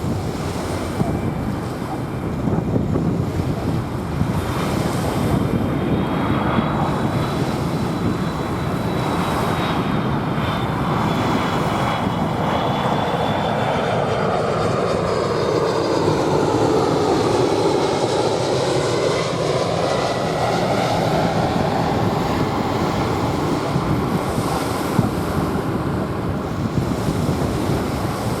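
Jet airliner passing overhead: its engine noise swells to a peak about two-thirds of the way through and then eases off, with a thin high turbine whine as it approaches. Waves wash on the sand underneath.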